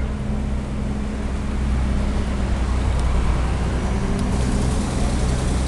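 Road traffic noise with a steady low engine hum, growing a little louder about two seconds in.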